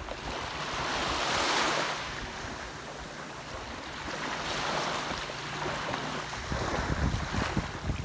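Small waves breaking and washing up a sandy beach, the surf swelling twice, with wind buffeting the microphone as a gusty low rumble near the end.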